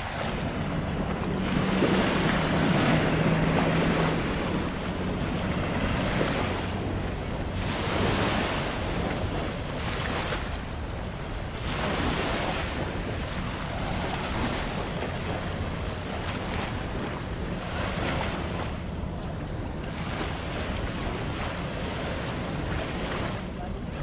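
Small waves lapping and washing up on a sandy shore, surging and ebbing every couple of seconds, with wind buffeting the microphone.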